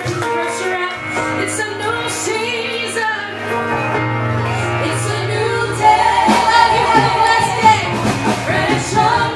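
Live church worship music: voices singing over a band with held bass notes and cymbal strokes, growing louder about six seconds in.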